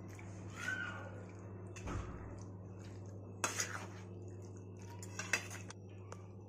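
A metal spatula scraping and clinking against a steel pan as thick mixed vegetables in masala are stirred, in a few separate strokes.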